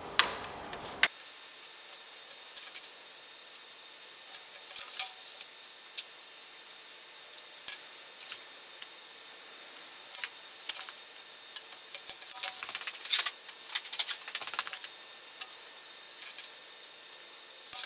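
Light clinks and taps of steel rules and a metal thermostat housing being handled and set down on a metal workbench, coming irregularly over a faint steady hiss.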